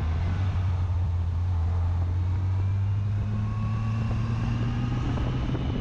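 Yamaha FJR1300's inline-four engine running steadily while the bike rides along, with wind and road noise. Its pitch climbs gently over the second half as the bike speeds up.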